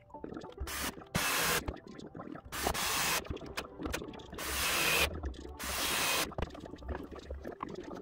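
Metal pocket frame and crocheted net of an antique snooker table being worked by hand into the cut-out under the wooden rail: several short bursts of scraping and rubbing, with small knocks between.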